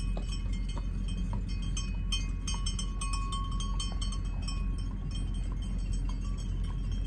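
Sheep bells clinking and ringing irregularly as a large flock of sheep moves along the road, one bell ringing on for a second or two around the middle, over a steady low rumble.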